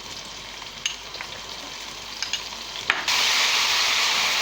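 Browned onions and ginger-garlic paste frying in ghee in a pot, sizzling, with scattered clinks of a spoon while stirring. About three seconds in there is a click and the sizzle suddenly becomes much louder and stays loud.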